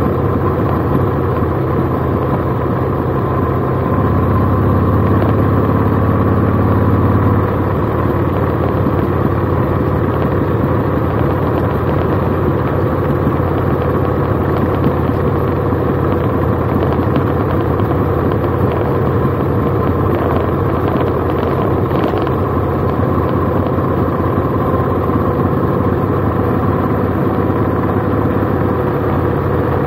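Cruiser motorcycle engine running while riding on the open road, with wind and road noise over the microphone; it grows louder for a few seconds about four seconds in, then settles back to a steady cruise.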